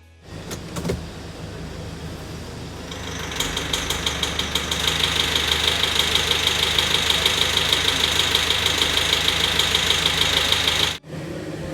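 Hyundai iMax van engine running with a rhythmic abnormal knock, about five knocks a second, getting louder about three seconds in. The knock is the engine fault behind its loss of power on acceleration. The sound cuts off suddenly near the end.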